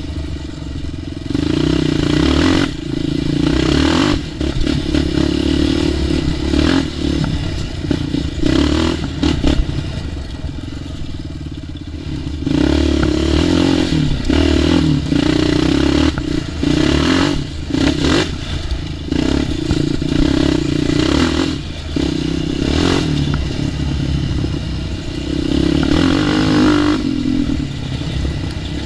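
ATV engine running on a trail ride, the throttle opened and eased off again and again, with short bursts of clattering from the machine over rough ground.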